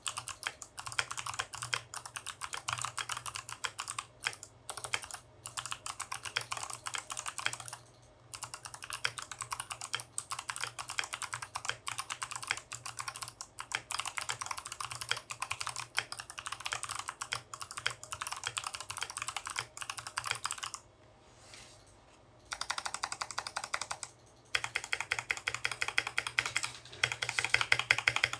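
Continuous typing on a Leopold 750R PD mechanical keyboard with stock Kailh Box White clicky switches: a dense stream of sharp key clicks. It pauses briefly about eight seconds in, stops for over a second a little past two-thirds through, and ends in a faster, louder run.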